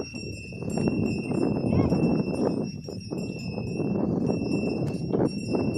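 Neck bells on a pair of working Ongole bulls jingling and ringing as the team pulls a plough, over a steady low rustling and scraping.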